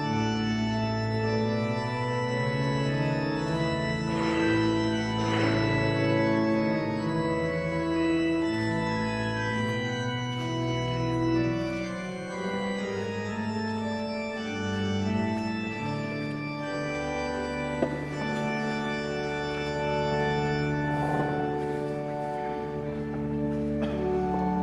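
Church organ playing slow, sustained chords that change every second or so.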